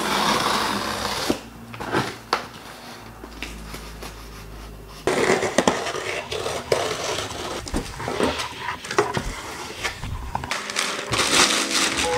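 Unboxing a cardboard shipping box: the box is shifted and handled, then from about five seconds in packing tape is slit with a box cutter, the flaps are pulled open and bubble wrap rustles, in a busy run of rustles and clicks.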